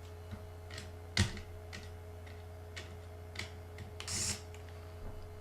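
Small, sparse clicks and taps of a precision screwdriver and tiny screws as the speaker screws are taken out of a laptop's aluminium chassis, with one sharper click about a second in and a brief scrape near four seconds. A faint steady hum runs underneath.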